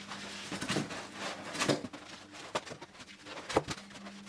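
Cardboard and foam packaging being handled: scattered knocks and rustles, about one a second, the sharpest about three and a half seconds in.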